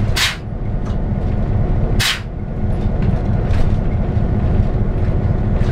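Diesel locomotive running slowly along the track, a steady low engine rumble. A short, sharp noise cuts through about every two seconds.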